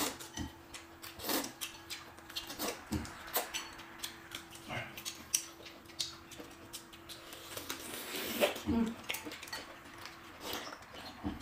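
Close-up eating sounds: irregular crisp crunches and wet chewing of pickled hand-peeled bamboo shoots and slurping of noodles, with an occasional click of utensils.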